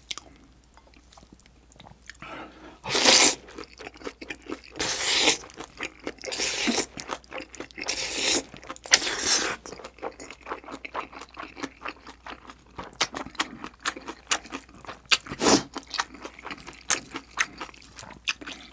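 Close-miked eating of spicy jjolmyeon noodles: about five loud slurps in the first half, then steady chewing with many small clicks.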